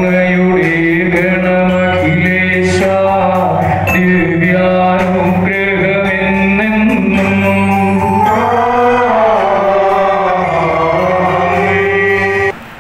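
Church hymn sung over sustained instrumental accompaniment during a Catholic Mass. The music breaks off sharply just before the end.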